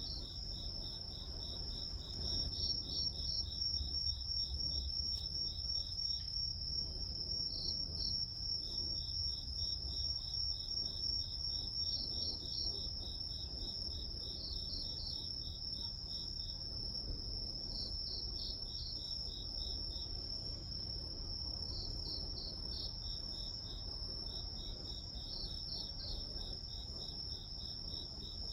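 Grass insects calling. A steady high trill runs underneath, while another insect chirps in rapid trains of pulses that break off and resume every few seconds, over a faint low rumble.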